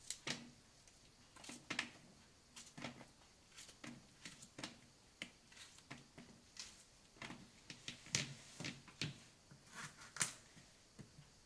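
Knife cutting chunks off a piece of long Sicilian zucchini held in the hand, the pieces dropping into a plastic colander: a string of faint, irregular clicks and taps, about one or two a second.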